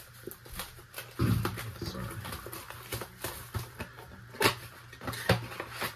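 Trading cards being handled, giving scattered sharp clicks and taps. About a second in there is a short, low, voice-like grunt.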